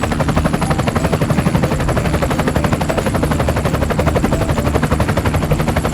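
Helicopter rotor chopping: a fast, even thudding of the blades, many beats a second, held steady and loud.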